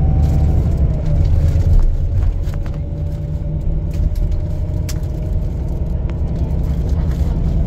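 Cabin noise of a road vehicle moving at highway speed: a steady low rumble of engine and tyres, with a faint steady whine above it and a few light clicks.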